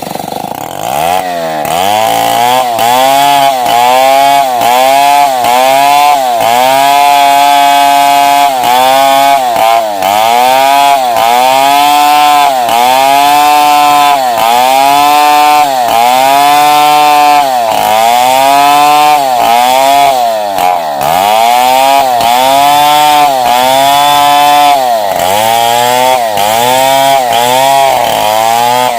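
Large two-stroke Stihl 070 chainsaw revving up from idle about a second in, then running at full throttle while ripping lengthwise through a long wooden beam. Its engine pitch sags and recovers roughly once a second as the bar loads up in the cut.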